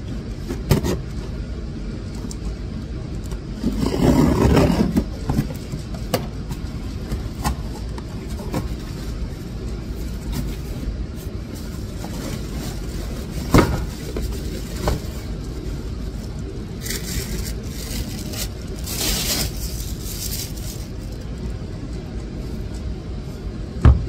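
Cardboard box being cut open and unpacked: scissors cutting the packing tape, cardboard and packing being pulled and rustled, with a few sharp knocks, over a steady low rumble.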